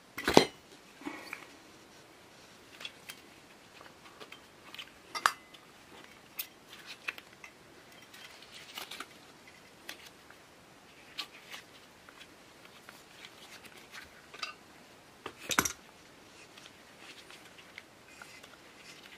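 Adjustable wrench and a Coleman 508A stove's steel fuel tank clicking and knocking as the fuel valve is worked loose and unscrewed by turning the tank by hand. Two louder knocks, about half a second in and about fifteen seconds in, among scattered lighter clicks.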